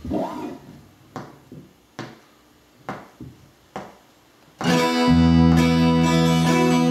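Sharp taps about once a second count in the song. About four and a half seconds in, a strummed acoustic guitar starts together with low bass notes.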